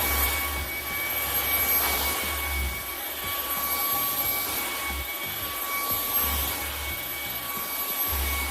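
KOOPOWER cordless vacuum cleaner, used handheld with its bed-cleaning nozzle, running steadily with a high-pitched motor whine over a rushing hiss of air.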